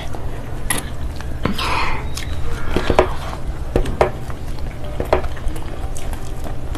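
Cutlery clinking against a plate during a meal, with sharp clicks roughly once a second, over a steady low hum.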